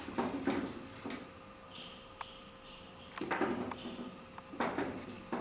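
A kitten scrambling over a wooden chair and a sisal-rope scratching post: scuffles, scrapes and light knocks in short bursts, about half a second in, around three seconds in and again near the end.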